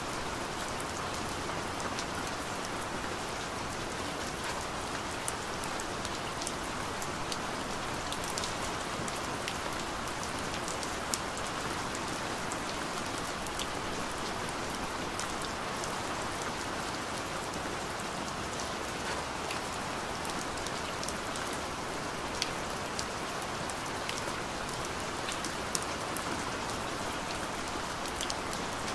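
Steady rain falling on hard surfaces, an even hiss with scattered sharp drop clicks.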